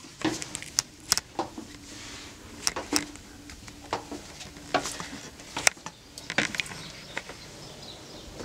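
Footsteps going down a spiral staircase and out through a doorway: a string of irregular knocks and clicks, one or two a second.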